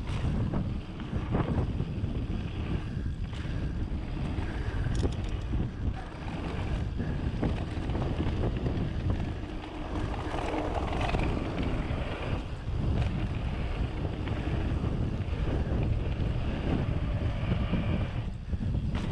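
Wind buffeting the microphone as a mountain bike, a Rocky Mountain Instinct, rolls fast down a loose gravel and dirt trail, with the rumble of the knobby tyres and small rattles of the bike over stones. The rumbling noise surges and eases with speed throughout.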